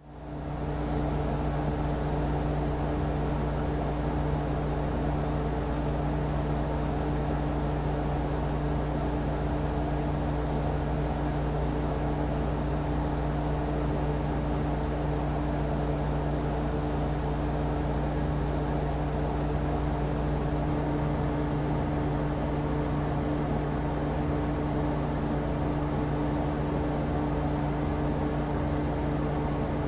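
Air conditioner running steadily: a constant low hum with a few steady tones under a whooshing fan noise, fading in at the start.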